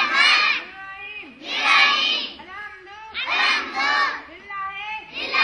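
A group of schoolchildren shouting short phrases together in unison, a loud burst of many voices about every second and a half to two seconds, with quieter gaps between.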